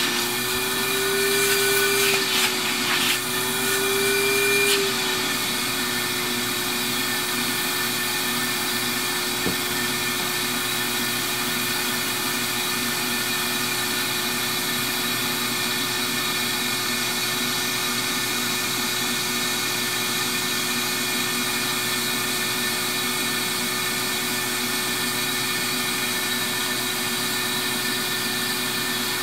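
Vacuum motor of a vacuum seeder running steadily with a constant whine. Twice in the first five seconds its pitch rises briefly and it gets a little louder.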